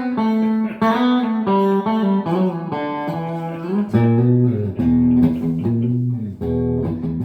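G&L CLF Doheny V12 electric guitar playing a melody of single notes, moving into lower, heavier notes about four seconds in.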